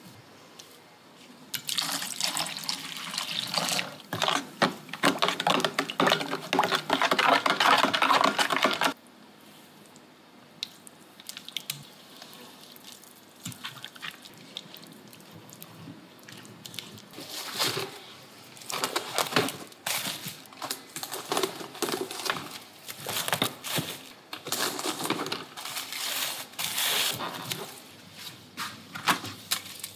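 Wet mixing sounds in a stainless steel bowl: batter stirred hard for about seven seconds, then quieter on-and-off squelching as raw beef short ribs are pressed into their marinade by hand.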